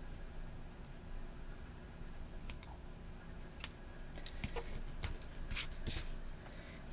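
Scattered small clicks and ticks from planner supplies being handled, such as stickers and paper. They come thicker near the end.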